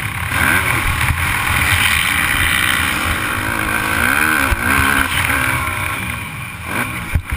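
Motocross dirt bike's engine running hard and revving up and down under race load, with wind buffeting the onboard camera's microphone. The engine eases off after about six seconds, with a couple of sharp knocks near the end.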